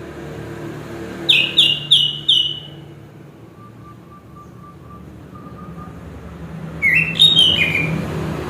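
Orange-headed thrush (anis kembang) singing: a quick run of four loud whistled notes about a second in, then another short phrase of notes stepping down in pitch near the end, over a low steady background hum.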